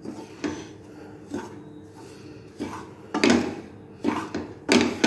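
Flat wooden spatula scraping and turning desiccated coconut in a nonstick kadai, in a series of short rasping strokes, the loudest a little past three seconds and near the end. The coconut is being roasted in ghee on a low flame.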